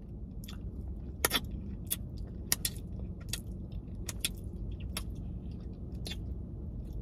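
Mouth sounds of eating: chewing, lip smacks and finger-licking, heard as about a dozen short, sharp clicks scattered through, over a low steady hum.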